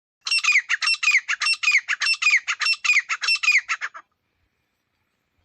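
Teetar (partridge) calling: a rapid, loud string of harsh clipped notes, with a falling note coming round about every half second in a repeating phrase, breaking off about four seconds in.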